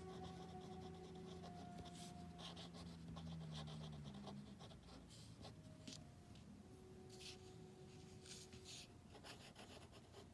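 Pen nib scratching faintly across paper as cursive words are written, in short strokes with brief pauses between them.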